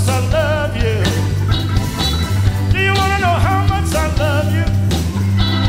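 Live soul band playing, with a male lead singer singing with a wide vibrato over bass, drums and held notes from the band.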